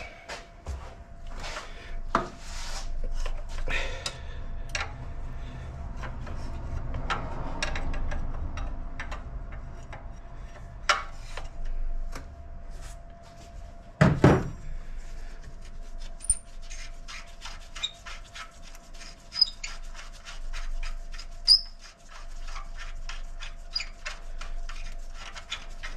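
Hand tools working on a nut in the engine bay: metal scraping and clunking, one heavy knock about fourteen seconds in, then a long run of quick, even clicks from a socket wrench being worked.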